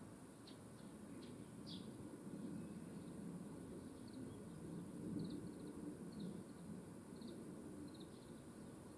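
Small birds chirping in short, high notes: a few in the first two seconds, then a quicker run of chirps from about halfway through, over a faint, steady low background noise.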